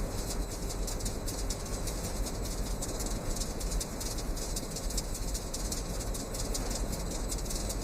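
Flour-mill machinery running steadily: an even low rumble with a dense, fast crackling patter over it, typical of grain and stock being milled and conveyed.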